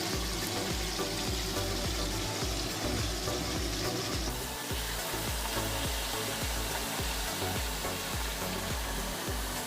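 Chitol (clown knifefish) belly pieces sizzling as they fry in hot oil in a kadai, with the hiss thinning about halfway through. Background music with a steady low beat plays underneath.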